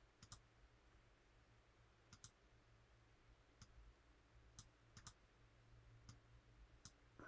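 Faint clicks of a computer mouse, about ten in all, several in quick pairs, over a faint steady low hum.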